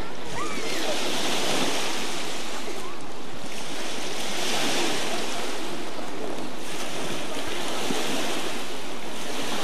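Small waves washing onto the shore: a steady rush that swells and eases every few seconds.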